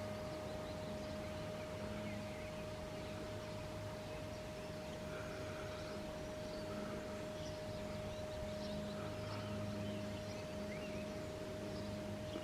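A steady, unbroken single-pitched tone of unknown origin, the 'strange noise' being recorded. It runs under scattered faint bird chirps and a low hum that comes and goes.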